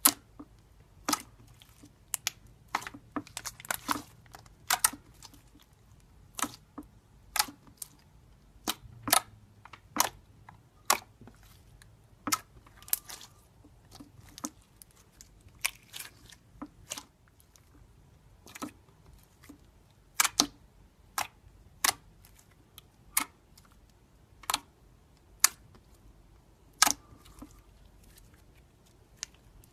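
Glossy red metallic slime being kneaded and pressed by hand, making sharp, irregular clicks and pops as trapped air bursts, about one or two a second.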